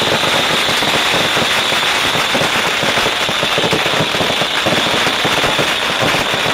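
Beehive fireworks, a rack of hundreds of bottle rockets firing at once: a dense, unbroken crackle of small rockets launching and bursting over a steady high hiss.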